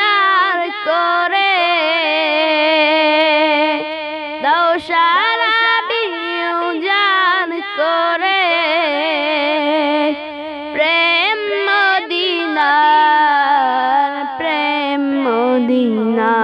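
A boy's high voice singing a long, wordless melodic interlude of a Bangla Islamic gojol, the line wavering and sliding between notes, falling lower near the end.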